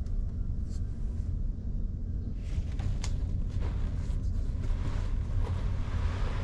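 Steady low rumble of the ferry's machinery carried through the hull into the cabin. About halfway through, a fabric bag starts rustling as it is handled on the carpet, with a light click or two.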